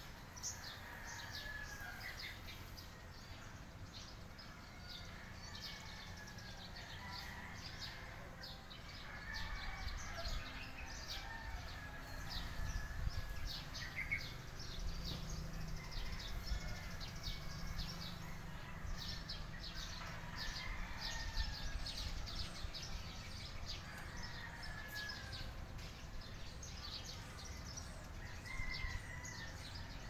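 Many birds chirping and calling: quick short high chirps throughout, with longer warbling calls every few seconds, over a low rumble that grows louder about nine seconds in.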